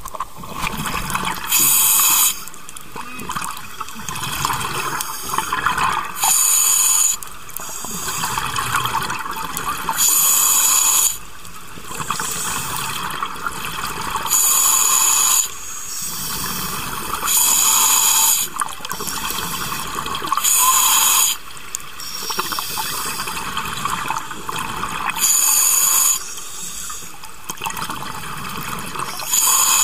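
Scuba regulator breathing underwater: a short, loud hiss of each inhale through the regulator, about every four seconds, with bubbling exhales in between.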